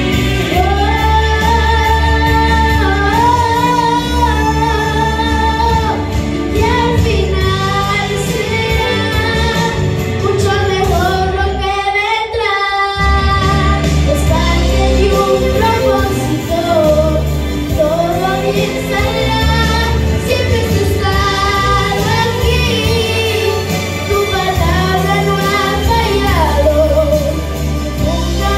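A girl singing a solo religious song into a handheld microphone over an instrumental backing with a steady bass. The backing drops out for about a second near the middle while she holds a wavering note.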